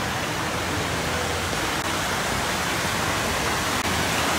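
Steady rush of falling water from a swimming pool's rock waterfall and fountain jets.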